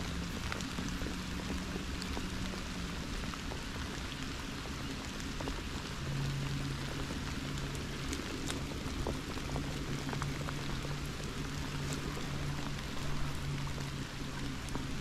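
Steady rain falling on a flooded pond and wet grass, with scattered drops ticking close by. A steady low hum runs underneath, stronger from about six seconds in.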